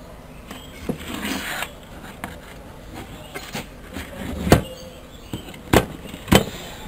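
Handling noise from a CRT television's circuit board being lifted and moved: a rustle of wires about a second in, then a few sharp knocks of the board and chassis parts, the loudest two close together near the end.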